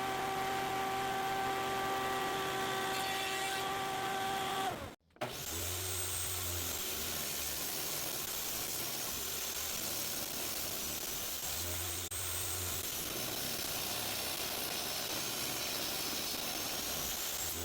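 Woodworking power tools running. For the first five seconds a motor runs with a steady hum of fixed tones; after an abrupt cut a noisier machine runs on with a faint wavering high whine.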